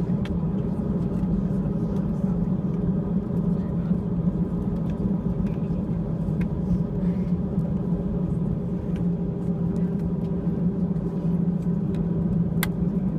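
Airbus A320 engines running at taxi power, heard as a steady low drone inside the passenger cabin while the jet taxis. There is a sharp click near the end.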